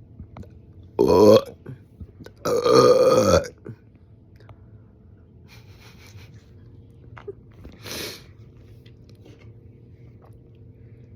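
A person burping: a short loud wet burp about a second in, then a longer one lasting about a second whose pitch falls. A much fainter short sound follows near the end.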